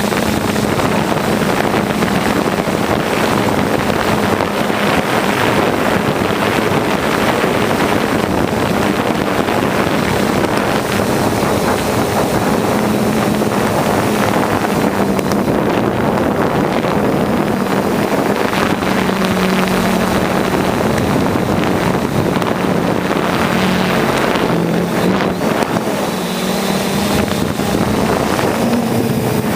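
Drone propellers and motors running steadily in flight, a hum that shifts slightly in pitch now and then, mixed with wind rushing over the microphone.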